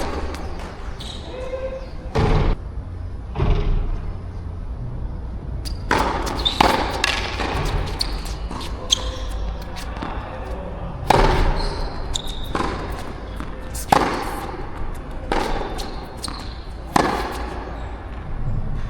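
Tennis rally: sharp pops of racket strings striking the ball and the ball bouncing, roughly every one to one and a half seconds, over a low rumble of wind on the microphone.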